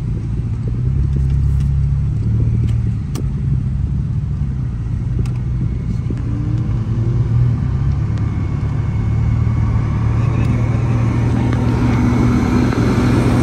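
Car engine and road noise heard from inside the cabin: a steady low hum as the car creeps through stopped traffic, growing fuller and louder in the last few seconds.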